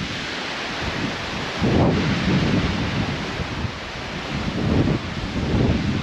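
Strong wind gusting and buffeting the microphone over a steady rushing hiss, with deep rumbling surges about two seconds in and again near the end.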